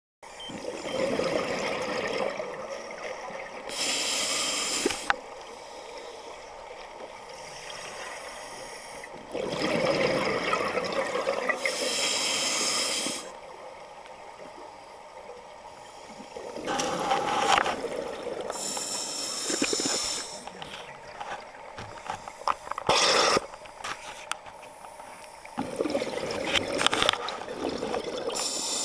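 Scuba diver breathing through a regulator underwater: a sharp hiss on each inhale, then a longer bubbling gurgle of exhaled air venting from the regulator. The cycle repeats about every eight seconds.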